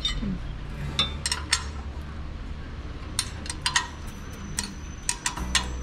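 Metal tools and parts clinking and clicking as they are handled under the engine bay: a dozen or so sharp, irregular clicks, more of them in the second half, over a steady low hum.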